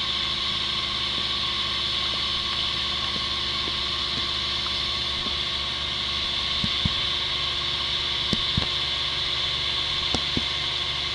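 Steady mechanical running from a Suzuki Samurai off-roader at work on its winch line, with a few faint clicks or knocks in the second half.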